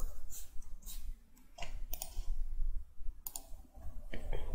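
Computer keyboard keys clicking irregularly as text is typed, a dozen or so keystrokes with a short pause about two seconds in.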